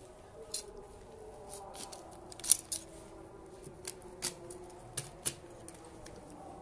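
Long-handled grass shears snipping the edge of freshly laid Bermuda grass sod: a string of sharp, separate blade snips, about seven in all, the loudest about two and a half seconds in.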